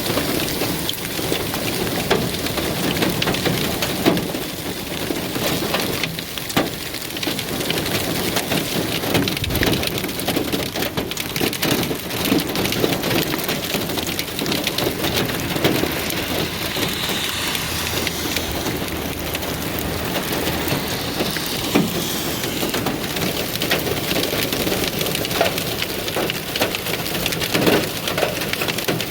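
Hail and heavy rain pelting down in a dense, steady downpour, with many sharp individual hailstone impacts clicking and knocking through it.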